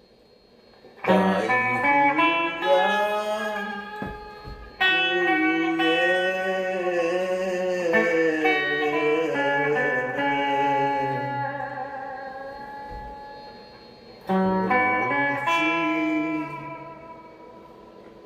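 Guitar music: sustained, bending guitar notes in three phrases, the first about a second in, each dying away.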